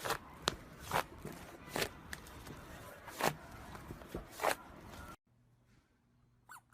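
A run of crisp crunching strokes, roughly one every half second to second, over a light hiss, as of soap being cut or crunchy material being worked by hand. About five seconds in it cuts off abruptly, leaving only a faint low hum and a few small clicks.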